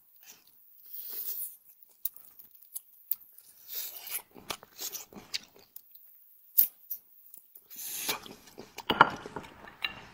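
Close-miked eating: irregular bites and chewing with wet smacks and crunches. The loudest burst of chewing comes about nine seconds in.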